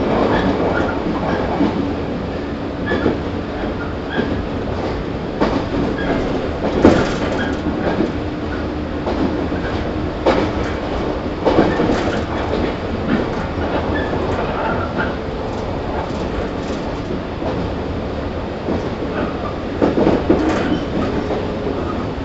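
Interior running sound of a JR 115 series DC electric multiple unit, heard from inside motor car KuMoHa 115-1005 at speed. A continuous wheel-and-rail rumble with a steady hum, broken by irregular clacks as the wheels pass over rail joints, with a cluster of louder knocks near the end.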